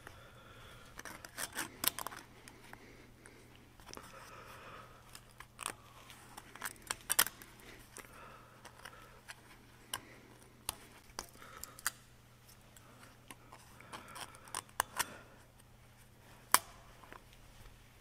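Scattered, irregular small sharp clicks and light scrapes from a spiral snap ring and seal rings being worked by hand into the steel bore of a backhoe's rotary swing cylinder, over a faint steady hum.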